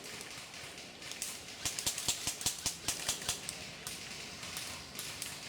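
A run of rapid, uneven sharp clicks lasting about two seconds, starting about a second and a half in, over a faint outdoor hiss.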